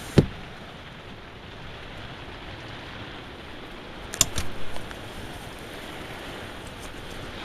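Heavy storm rain and wind making a steady rushing noise, with a sharp thump just after the start and a short run of knocks about four seconds in.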